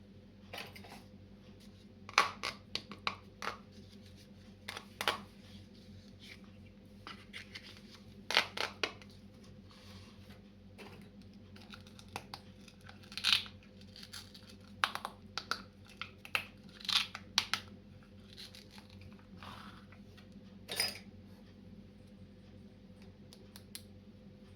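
Toy packaging being handled and opened during an unboxing: irregular crinkling and tearing with scattered clicks, over a faint steady hum.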